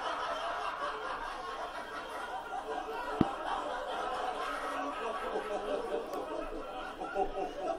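Several people laughing together, heard through a television's speaker and recorded off the set, with a single sharp click about three seconds in.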